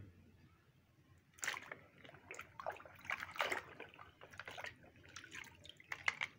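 Water splashing and sloshing in a bucket as a muddy plastic toy tractor is dipped and swished in it by hand. It starts about a second and a half in and goes on in irregular splashes.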